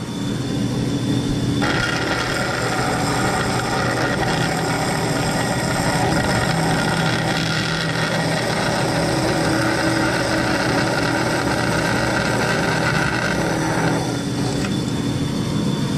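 1971 DoAll vertical metal-cutting bandsaw running, its old blade cutting into a metal bar. A steady hiss of cutting starts about two seconds in and stops about two seconds before the end, leaving the saw running free.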